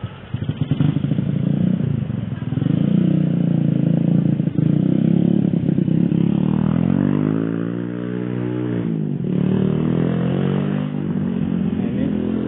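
Small motorcycle engine running close by on a muddy track, its engine note changing pitch around eight seconds in as it goes past.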